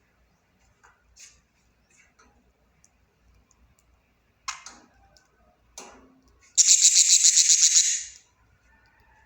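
Budgerigar making faint clicks and two short sharp calls, then a loud harsh rattling call of about a second and a half that pulses quickly.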